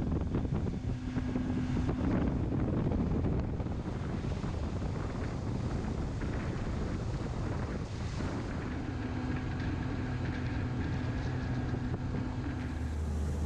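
Yamaha 115 outboard motor running steadily at speed, with wind buffeting the microphone and water rushing past the hull.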